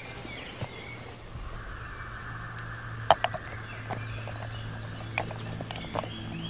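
Gear being handled on a canvas-and-leather rucksack: a few sharp clicks and knocks, about three seconds in and again near the end, as buckles and wooden items are fastened to the straps. Small birds chirp near the start.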